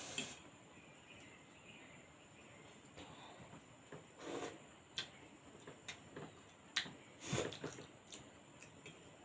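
Close-up sounds of someone eating thukpa noodle soup: two short slurps, about four and seven seconds in, with scattered light clicks and chewing between them.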